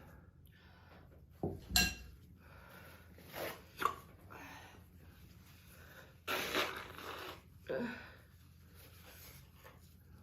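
A young woman hiccuping several times at irregular intervals, with a longer breathy sound past the middle. The hiccups were set off by eating hot pepper powder.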